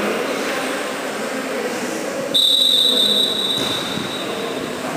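Referee's whistle blown once: a single long, steady, high blast starting about halfway in and trailing off after about a second.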